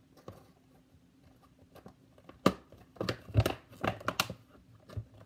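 Stiff plastic blister packaging crinkling and crackling as it is handled and pried at, in a run of sharp irregular crackles starting about two and a half seconds in.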